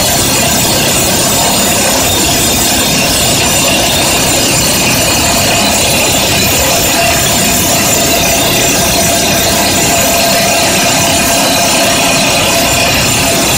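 Excavator-mounted FINE Breaker EX-Drill 300 hydraulic rock drill running and drilling into rock: a loud, steady, rapid metallic rattle of hammer blows.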